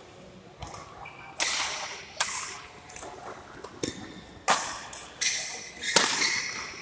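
Badminton rally in a large hall: rackets striking the shuttlecock five times with sharp cracks that ring briefly in the room, the hits coming in two quick runs, with smaller clicks in between.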